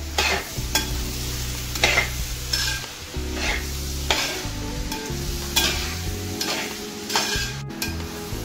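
A spoon stirring and scraping through a large aluminium pot of chopped onions frying in coconut oil, with sizzling and a scrape about once a second, over a steady low hum.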